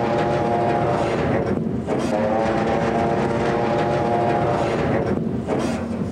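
Fishing boat's diesel engine running loudly while the boat is tied up, its note dipping briefly twice and picking up again.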